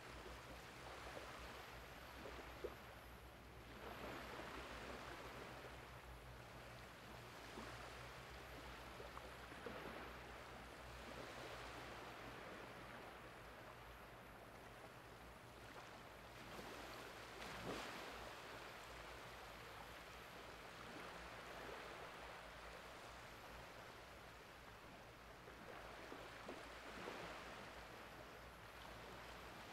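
Faint small waves washing onto a flat sandy beach as the tide comes in, swelling and fading every few seconds over a steady low hum.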